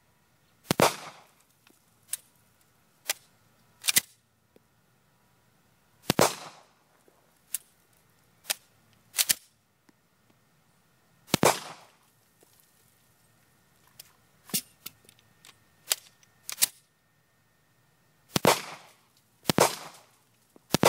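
Firearm shots fired at irregular intervals, about six loud reports, each with a short ringing tail. Quieter sharp clicks come in between.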